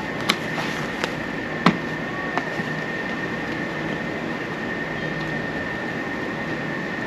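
Steady machine hum with a high, even whine, and four sharp clicks in the first couple of seconds.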